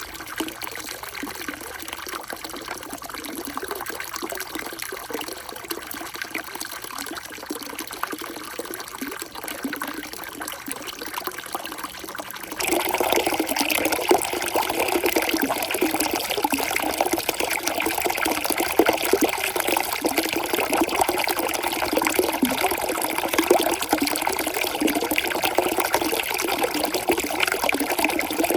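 Water flowing and splashing steadily through a water marble run's channels, turning abruptly louder a little under halfway through.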